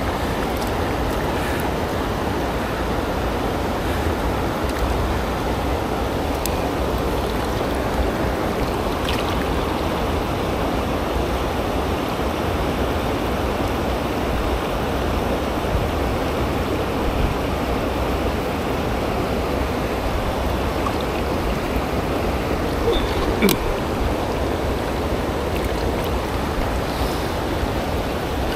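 Shallow, stony river water rushing steadily over rocks in a riffle, with a few faint clicks along the way.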